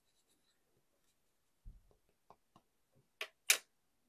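Rubber stamping on a paper collage board: a soft thump, a few light clicks, then two short sharp knocks a little after three seconds in, the second the loudest, as a wood-mounted stamp is inked and pressed down.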